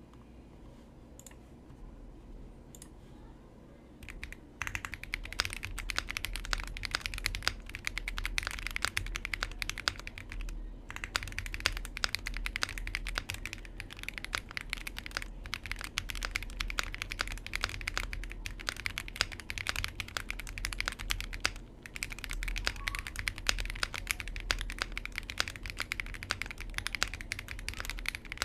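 Typing on a Sugar65 mechanical keyboard with Cherry MX Black linear switches lubed with Krytox 205g0 and fitted with films, on an FR4 plate, under Cherry-profile keycaps. A few faint keystrokes at first, then fast continuous typing from about four and a half seconds in, with two brief pauses.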